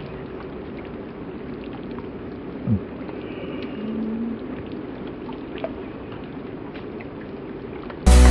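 Domestic goose sneezing: one short, sharp snort about two and a half seconds in, falling in pitch, over steady background noise.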